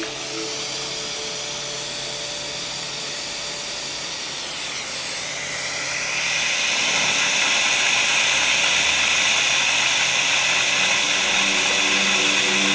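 High-speed dental handpiece (dentist's drill) running with its water spray, cutting tooth for a crown preparation: a steady high whine. About five seconds in, its pitch slides and it then runs a little louder.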